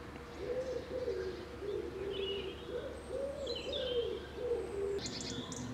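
A pigeon cooing in a run of low, wavering notes, with a couple of brief higher bird chirps in the middle.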